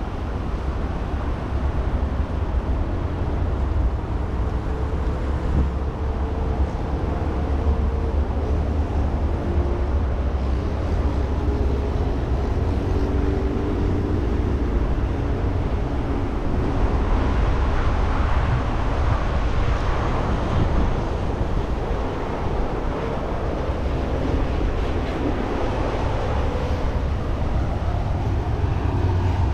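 Road traffic crossing a bridge: vehicle engines and tyres over a steady low rumble, with one vehicle swelling louder a little past halfway.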